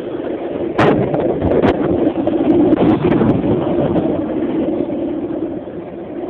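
Skateboard wheels rolling on a concrete sidewalk: a steady rumble with a few sharp clacks in the first two seconds, fading slowly near the end.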